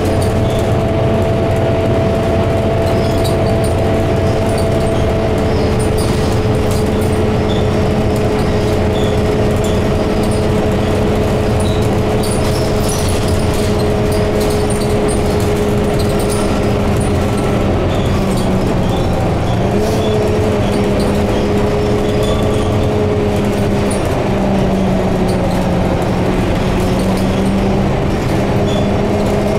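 Scania K230UB bus under way, heard inside the passenger cabin: a steady drivetrain hum with several held tones over road and wind noise. The tones drift slowly, dipping about two-thirds of the way through and then rising again.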